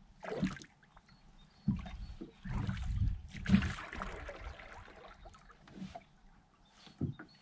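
Rowing a small plastic rowboat with wooden oars: the oar blades splash and pull through the water and the oars knock in their oarlocks. The strokes come at uneven intervals and are loudest about three to four seconds in.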